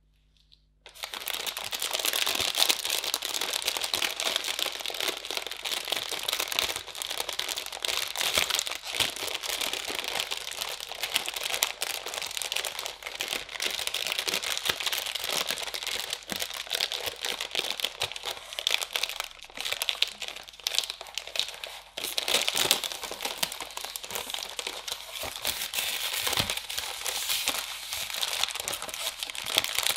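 Crinkling plastic packaging being handled close up, a dense crackle that starts about a second in, eases for a moment around two-thirds of the way through, then picks up again.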